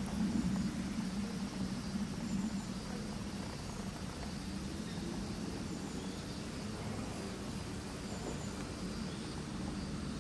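A steady low hum with faint, short high chirps now and then.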